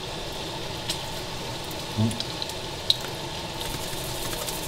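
Steady kitchen hiss with a few light clicks and a soft knock as spice jars are handled and shaken over a mixing bowl of cauliflower mash.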